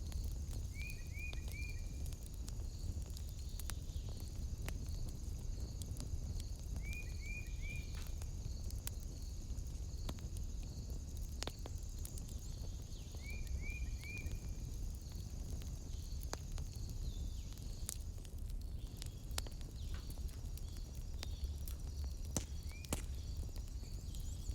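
Wood fire crackling with scattered sharp pops over a low steady rumble. Behind it runs a steady high-pitched trill, and a quick three-note chirp comes three times, about six seconds apart, with a single chirp near the end.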